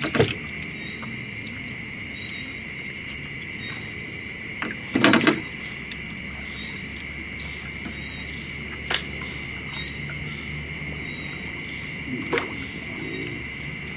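Steady chorus of night insects, crickets shrilling without a break. A few sharp knocks and a brief louder sound about five seconds in break over it.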